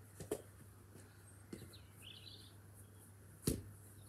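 Football being kicked: a light thud shortly in, a faint one about a second and a half in, and a sharp, loud kick about three and a half seconds in.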